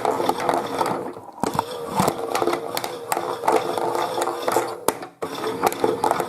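Small electric motor of a toy washing machine turning its drum in a wash tumble, running with a steady hum and a constant clicking rattle of its plastic gears and drum. The sound drops out briefly twice, about a second in and about five seconds in.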